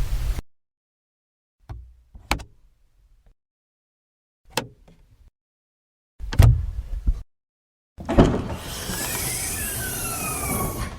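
A run of separate car-interior sound effects with silence between them. First come the tail of a heavy thud, then sharp latch-like clicks and a thump. Near the end there is a noisy sliding whir of about three seconds, with one tone falling and another rising, like a door or window moving.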